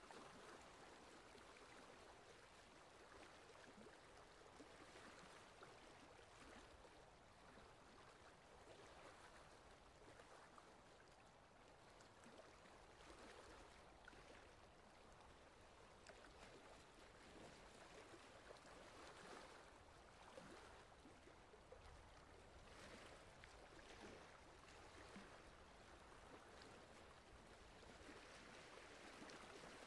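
Faint water sounds of a wooden paddle dipping and pulling through calm water beside a small wooden boat, with soft swishes every couple of seconds as the strokes go on.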